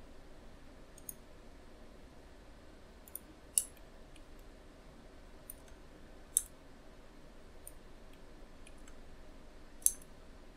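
Scattered computer mouse clicks, about eight in all and three of them louder, over a faint steady background hum.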